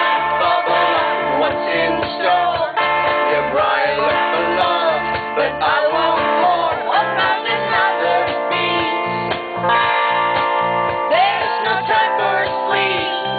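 Live rock song: a woman singing lead over guitar, with a steady pulsing bass beat underneath.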